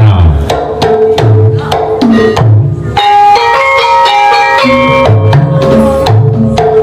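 Javanese gamelan playing in the jaipong style: kendang drum strokes with low tones that bend in pitch, joined about halfway through by the steady ringing notes of bronze metallophones.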